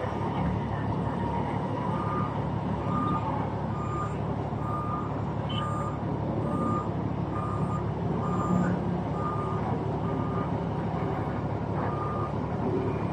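Reversing alarm on a SANY container reach stacker beeping at an even pace, about one and a half beeps a second, starting about two seconds in, over a steady low engine rumble.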